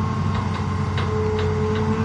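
Hitachi tracked excavator's diesel engine running steadily while digging, with a steady whine that grows stronger about halfway through and a few short knocks as the bucket works through hard, rocky ground.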